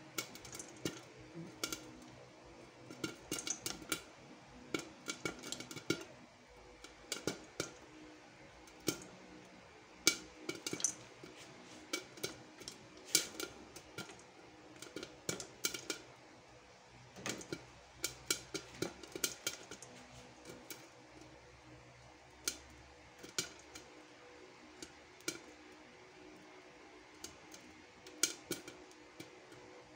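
Popcorn popping in a covered pot with a glass lid: sharp, irregular pops and ticks as kernels burst and hit the lid and pot. They come in quick clusters and grow sparser in the last third.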